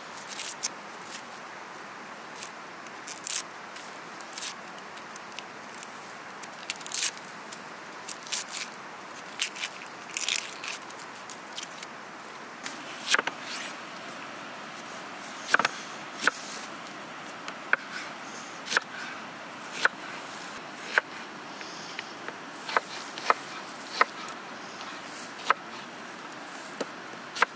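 Dry onion skin crackling and rustling as an onion is peeled with a knife, then, about halfway through, a knife chopping the onion on a wooden cutting board with sharp knocks about once a second.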